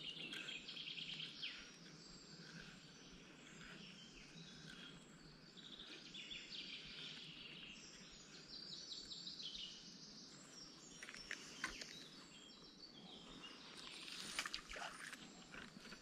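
Faint songbirds chirping and trilling in repeated phrases over a low outdoor hush, with a few short clicks in the last few seconds.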